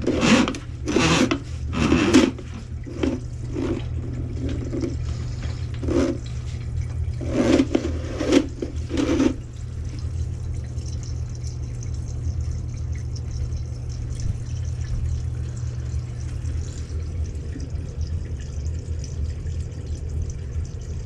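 Electric drum-type kitchen sink snake running with a steady motor hum while its cable is drawn back out of the drain into the spinning drum. For the first nine seconds or so the wet cable slaps and splashes at irregular intervals, then only the hum of the machine remains.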